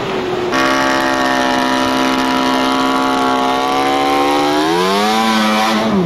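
Snowmobile engine running at high, steady revs, then its pitch climbs as the throttle opens further near the end.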